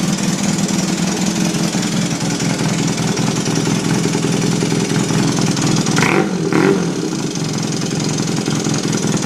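1981 Honda CM400's air-cooled parallel-twin engine idling steadily, making the top-end noise the owner is recording. Two short, higher-pitched sounds come about six seconds in.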